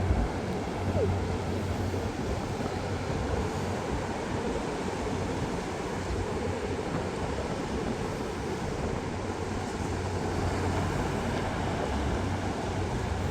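Ocean surf washing onto the beach as a steady rush, with a low rumble coming and going underneath.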